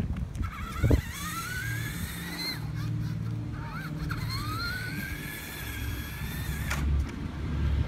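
Electric RC monster truck's motor and drivetrain whining, rising in pitch twice as it accelerates, with a sharp knock about a second in and another near the end.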